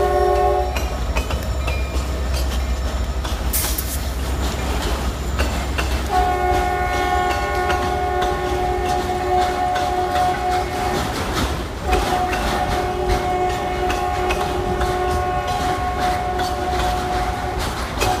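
Freight train passing: the lead SD70MAC locomotive's multi-chime horn blows long blasts, one ending just after the start, one from about six seconds in and one from about twelve seconds in. Under the horn is the steady rumble and wheel clatter of auto rack cars rolling by on the rails.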